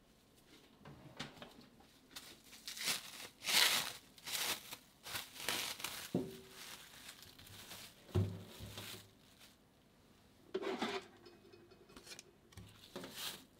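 Clear plastic cling film crinkling and tearing as it is unwrapped by hand in irregular crackles, with a couple of light knocks with a short ring about six and eight seconds in.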